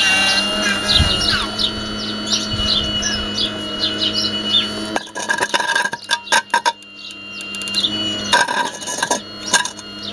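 Songbirds chirping busily over the steady hum and whine of a radio-controlled model excavator's hydraulic pump. Around the middle the hum drops out for a couple of seconds and a run of clicks and knocks is heard, then the hum comes back.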